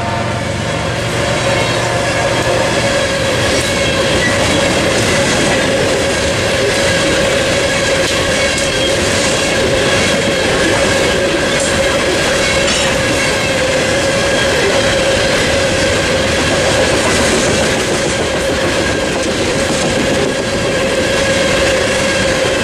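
A freight train of coal hopper cars rolling steadily past at a crossing, with loud, even wheel and rail noise and the clickety-clack of wheels over the rail joints. A steady high ringing tone runs under the wheel noise.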